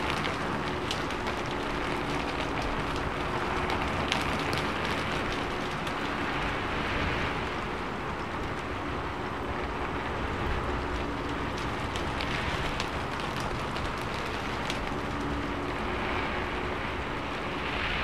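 Steady rain falling, an even hiss with a few sharper drop ticks and gentle swells in intensity.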